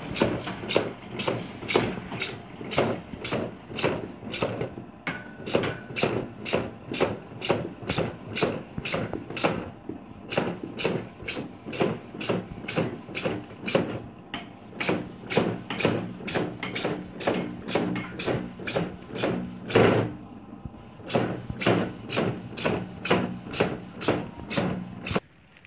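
Drilling machine boring holes in PVC pipe with a steady rhythm of sharp strokes, about two to three a second, over a faint motor hum; it stops suddenly near the end.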